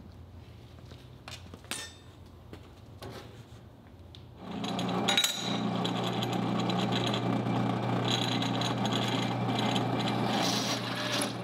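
Drill press running and drilling through a small steel plate, starting loudly about four seconds in with a steady motor hum and the grinding of the bit in the metal. Before that there is only a faint low hum with a few light clicks.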